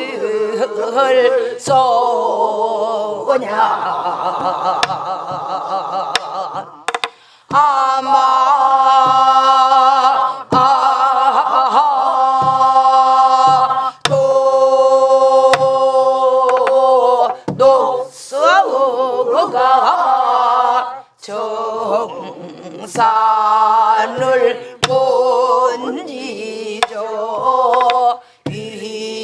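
A group of women and men singing a Namdo folk song in unison, in long held phrases with short breaks between them, over strokes on buk barrel drums.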